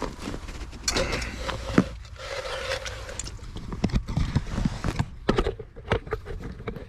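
Footsteps on lake ice: an uneven series of short thumps and scuffs.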